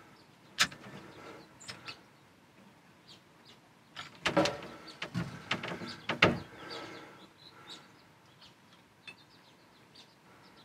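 A metal protein feeder banged at irregular intervals by an aoudad ram's horns and head: sharp metallic clanks with a short ring, the loudest cluster coming about four to six seconds in.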